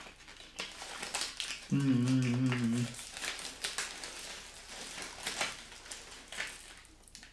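Paper packaging rustling and crinkling as it is handled and folded, with a short closed-mouth 'mmm' of enjoyment about two seconds in.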